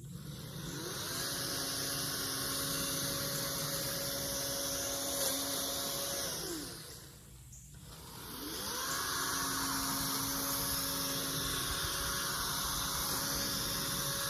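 Toro electric chainsaw motor spinning up to full speed with a steady whine. It is let off after about six seconds and winds down, then is triggered again and spins back up to full speed.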